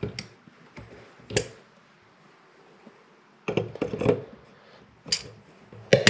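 Irregular metallic clicks and clinks of a chrome faucet handle and pliers being handled and knocked against the faucet and counter as the handle is fitted back onto the cartridge. The loudest click comes about a second and a half in, then a cluster around three and a half to four seconds, and another sharp one about five seconds in.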